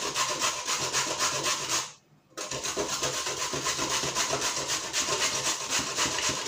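A carrot being grated on the coarse holes of a stainless-steel box grater: a steady rasping scrape, about three to four strokes a second, with a brief pause about two seconds in.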